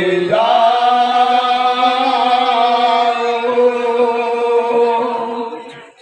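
A man's voice holding one long, steady chanted note for about five seconds, then fading away near the end.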